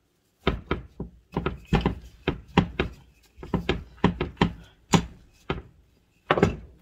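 Wooden rolling pin working dough on a wooden board: a quick, uneven run of knocks and thuds, about three a second, as the pin is pushed back and forth and lands on the board.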